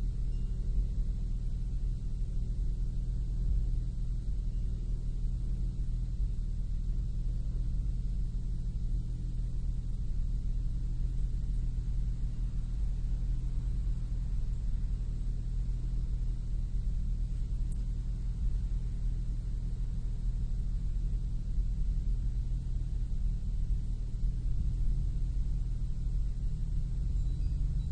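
Nissan Maxima's 3.5-litre VQ-series V6 idling steadily, with the slight misfire at idle that the owner is chasing.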